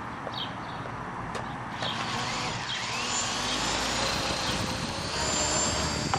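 Walkera 4#3B micro RC helicopter's brushless motor and rotor whining in flight, the pitch gliding up and down, then holding steady and high near the end. Wind noise runs underneath.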